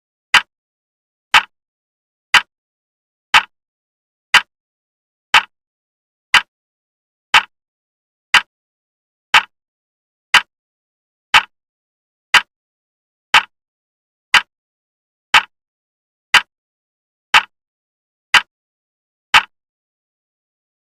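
Clock ticking, one sharp tick every second, about twenty ticks in all; the ticking stops shortly before the end.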